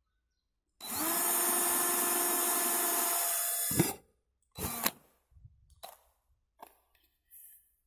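Parkside cordless drill spinning up and drilling a small hole through the wall of an orange plastic pipe, its motor whine steady for about three seconds before it stops with a click. A few short knocks and clicks follow.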